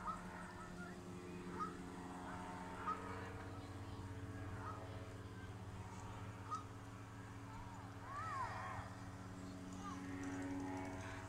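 Distant powered paraglider's engine droning steadily and faintly, with short bird calls over it every second or two and a longer looping call a little past the middle.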